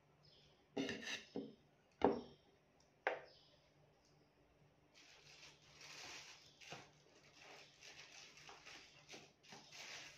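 A few sharp knocks and clinks about one to three seconds in, the loudest ringing briefly, as a slab of cake and its plate are set down on a wooden table. Faint hiss follows.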